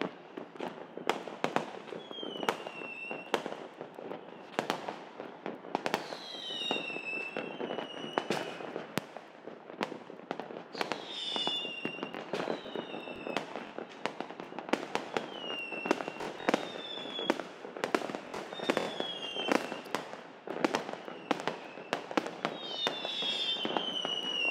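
Many fireworks going off at once: a dense run of overlapping bangs and crackles, with short falling whistles every second or two.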